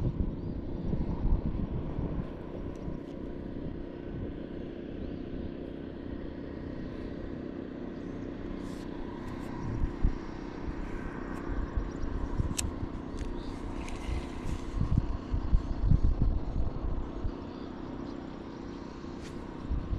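Wind buffeting the microphone in uneven gusts, with a steady low hum underneath and a few light clicks.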